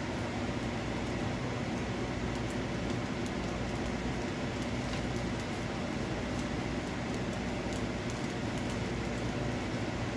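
Steady fan-like whirr with a low hum underneath, and a few faint ticks scattered through it.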